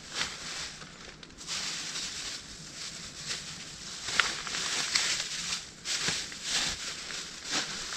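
Irregular dry rustling and crackling of leaves and brush, with sharper crackles scattered through it that grow busier after the first second and a half.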